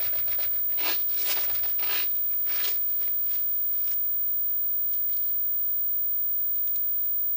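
Small plastic BB pellets clattering out of a plastic bottle into a hand, four or five brief rustling rattles in the first three seconds, then a few faint clicks as pellets are pressed into a toy pistol's magazine.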